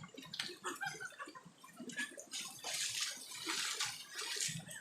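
Water splashing and pouring over a goat being bathed in a river, heavier from about halfway through.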